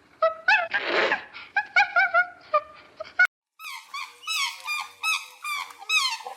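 Young animals giving many short, high-pitched cries, one after another. A brief rustle comes about a second in. After an abrupt cut at about three seconds the cries are higher and rise and fall.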